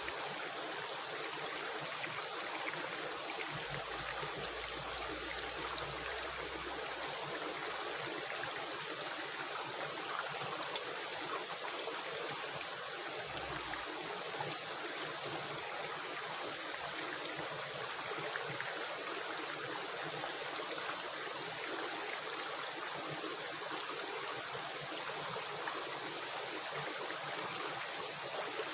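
Running water rushing and gurgling in a steady, unbroken noise, like a stream or brook flowing.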